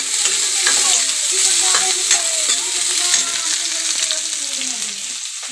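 Chopped onion frying in hot oil in a steel kadhai: a steady sizzle that eases slightly near the end.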